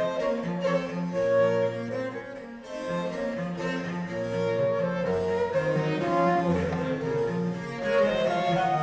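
Baroque chamber ensemble playing a courante: wooden baroque transverse flute, violin, viola da gamba and cello with harpsichord, several melodic lines moving together.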